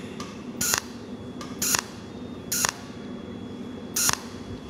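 Cold welding machine's tungsten torch firing its arc in short hissing bursts about once a second, four times, each burst tacking one more spot along the seam in thin sheet metal. A faint steady hum lies underneath.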